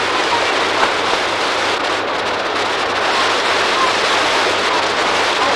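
Water pouring steadily over a low concrete weir, a constant rushing noise.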